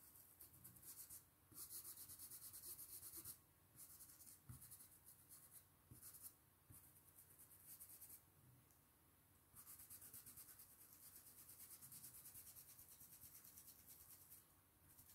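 Faint hiss of a stencil brush (Tigre 803, no. 6) rubbed in quick short strokes over a stencil onto fabric, in spells of a few seconds with short pauses. The brush is worked with a light hand.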